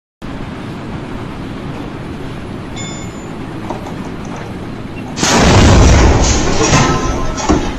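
Steady background noise, then about five seconds in a sudden, very loud boom with a deep rumble that dies away over about two seconds.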